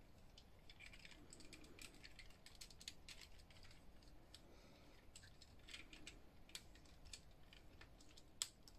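Faint, scattered clicks and snaps of a plastic G1 Transformers Double Dealer toy being handled and its parts moved, with one sharper click near the end.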